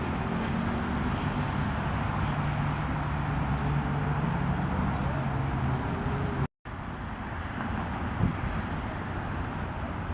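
Steady rumble of road traffic with a low engine hum over the first six seconds. The sound cuts out completely for a moment about six and a half seconds in, then the traffic rumble goes on.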